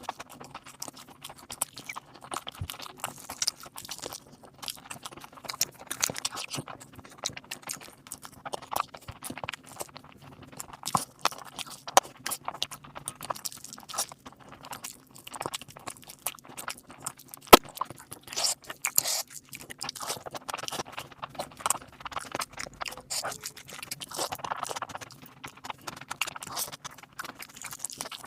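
Close-miked chewing and mouth sounds of a person eating a spicy biryani meal, made up of many short, irregular clicks with one sharper, louder click just past halfway.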